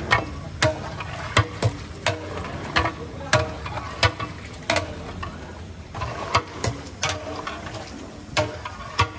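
A long metal ladle stirring nihari in a large steel pot, clanking against the pot's side in sharp, irregular knocks about one or two a second.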